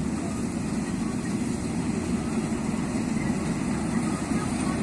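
Vishal 435 combine harvester running steadily: a dense, even, low mechanical rumble from its diesel engine and machinery.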